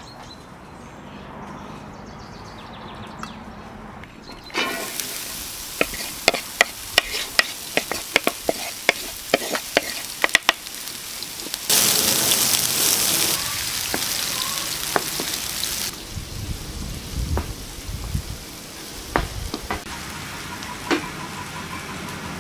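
Chopped onion hitting hot oil in a wide pan, starting a sudden sizzle about four and a half seconds in that is full of sharp crackles and spits. Around the middle it turns to a louder, steadier hiss as the onion is stirred with a wooden spoon, then settles to a gentler sizzle.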